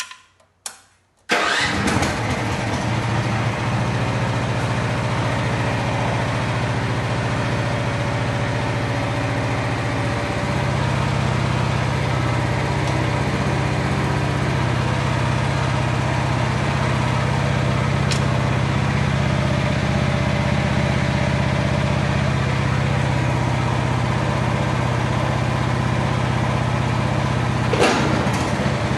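The Jansen MB 500's small petrol engine starting about a second in, after a few clicks, then running steadily. Its note shifts lower and stronger about ten seconds in, and there is a short knock near the end.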